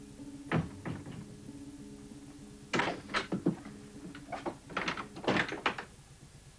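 Wooden door being handled, with a run of knocks and latch clatters about half a second in and again from about three to six seconds in. Low held notes of background music sound under it and stop near the end.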